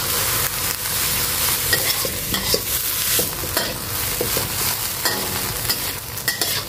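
Miding fern shoots stir-frying in a steel wok: a steady sizzle, with the metal spatula scraping and clicking irregularly against the pan as it tosses them.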